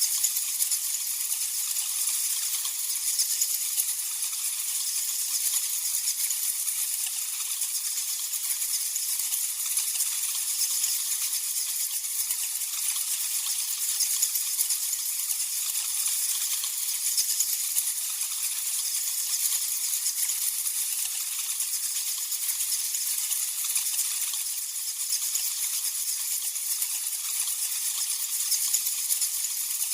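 A colony of bats chattering: a dense, steady stream of high-pitched squeaks and clicks with no low sound under it.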